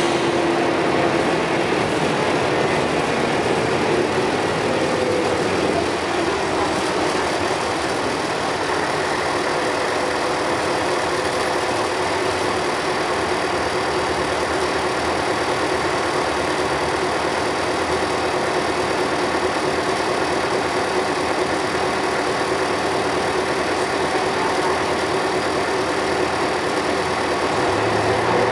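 Scania L113CRL bus's 11-litre six-cylinder diesel running steadily, a constant even engine noise with faint steady tones and no separate bursts of hiss.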